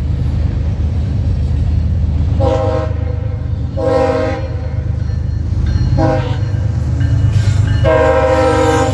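Locomotive air horn sounding the grade-crossing signal, long, long, short, long, over the steady rumble of the passing train. The last long blast is still sounding at the end.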